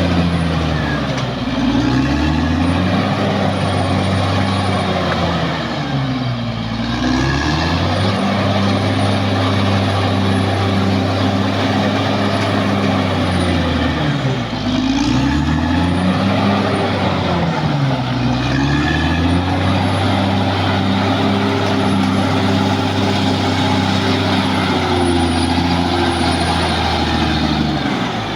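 Caterpillar D6R XL bulldozer's diesel engine running hard. Its pitch sags and recovers about five times, as the engine is loaded down and picks back up while the dozer works.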